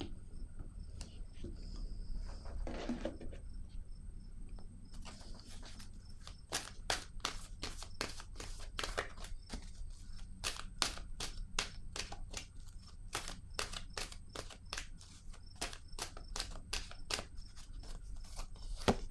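A deck of oracle cards shuffled by hand: a run of crisp, irregular card clicks, about two or three a second, starting about five seconds in.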